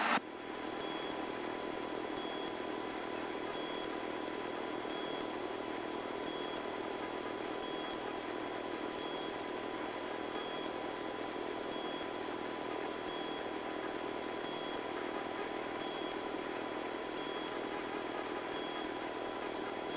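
Steady cabin noise of a Robinson R22 helicopter in flight, an even rush with a faint high steady whine over it.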